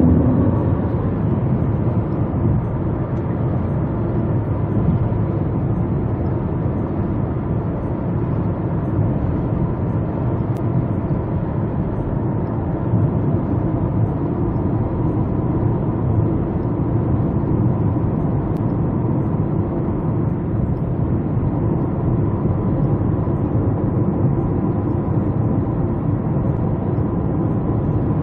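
Steady road and engine noise heard inside the cabin of a moving car: an even low rumble with no breaks.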